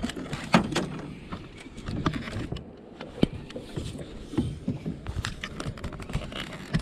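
Irregular knocks and clicks of gear bumping against an aluminum boat hull, over a low rumble of background noise.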